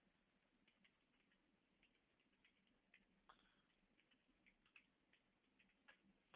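Near silence with faint, irregular computer keyboard keystrokes, a few scattered clicks.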